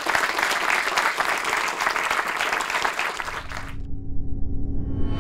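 Audience applauding, many hands clapping at once; the applause cuts off suddenly about three and a half seconds in. A low, sustained tone from an institutional logo jingle begins as it ends.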